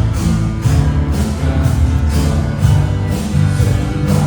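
Band music with electric guitar and drums keeping a steady beat, typical of a worship song.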